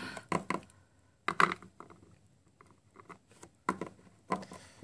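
Light, irregular taps and clicks of a small plastic toy figure being hopped and set down on a hard tabletop, about a dozen short taps in all.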